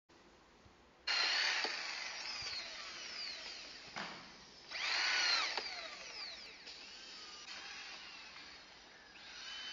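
Portable dowel drilling machine running in several short bursts as it bores dowel holes in a board, its pitch swinging up and down as the bits spin up, cut and slow. The first burst starts suddenly about a second in and the loudest comes near the middle.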